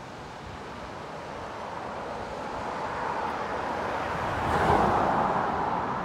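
A car passing on the road, its noise building slowly, loudest about three-quarters of the way through, then fading.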